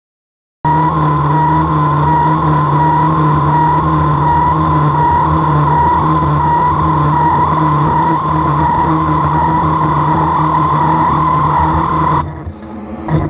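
Mazak manual lathe turning a 17-4PH stainless steel workpiece: a steady machine running sound with a high tone that wavers slightly in pitch over a low steady hum. It starts abruptly under a second in and drops off near the end.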